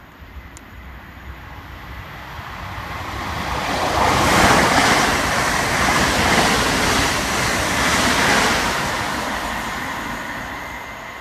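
Electric multiple-unit passenger train passing at speed: a rushing noise that builds over about four seconds, stays loud for about four more, then fades as the train goes by.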